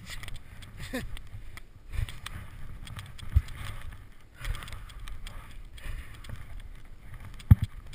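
Snowboard riding through deep powder snow: a steady rush of snow spraying over the board, broken by several dull thumps, the loudest near the end.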